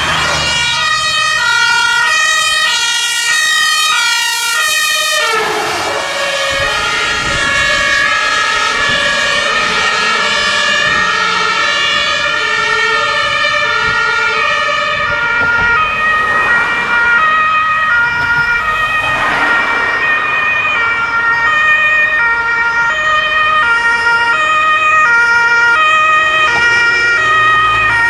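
German two-tone emergency sirens (Martinshorn) on fire service vehicles responding under blue lights, with traffic and engine noise underneath. One siren alternates at first; from about five seconds in, several sound at once, out of step with one another.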